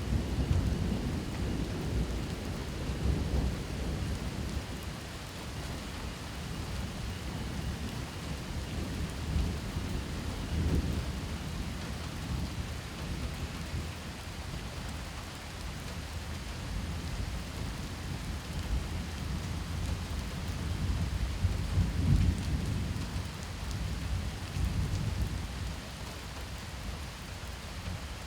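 Steady rain falling, with several long rolls of low thunder rumbling under it. The loudest roll comes a little past the two-thirds mark.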